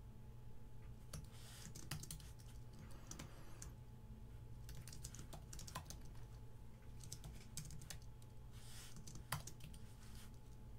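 Faint keystrokes on a computer keyboard, typed in short runs with pauses between them.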